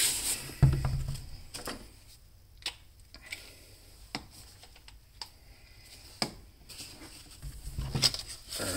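Workbench handling noises: a thump about a second in, a few sharp, widely spaced clicks, and near the end rustling and knocks as the plastic-bodied chainsaw is grabbed and turned over on the wooden bench.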